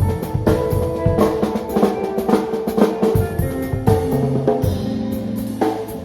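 Live band playing a song, a drum kit with bass drum and snare driving the beat under sustained pitched instrument notes; the drumming thins briefly past the middle while a low note holds.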